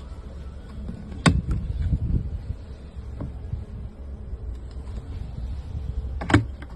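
Low rumble with two sharp knocks about five seconds apart and a few fainter clicks between them.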